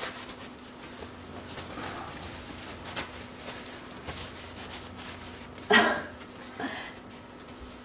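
Quiet room tone with a faint steady hum, a single light click about three seconds in, and a brief voice sound near six seconds.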